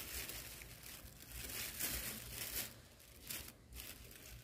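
Crisp, crunchy chewing of fresh raw greens, in irregular bursts.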